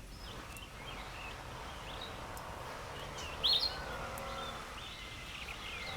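Small wild birds chirping in short, scattered calls over steady background noise, the loudest a quick pair of chirps about three and a half seconds in.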